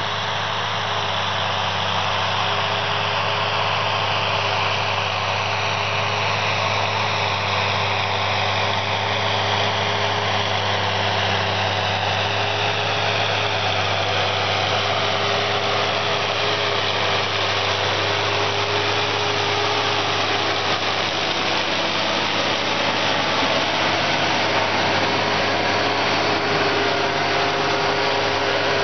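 John Deere 6920S tractor's six-cylinder diesel engine running steadily under load while driving a PTO-powered rotary harrow through the soil, growing a little louder as the tractor draws near. A high whine slowly drops in pitch over the first half.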